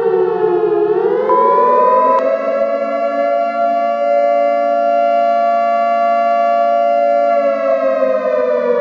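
Civil defense siren wailing. Its pitch dips, climbs to a steady high note about two seconds in, holds there, and begins to wind down near the end. A brief steady beep sounds over it a little over a second in.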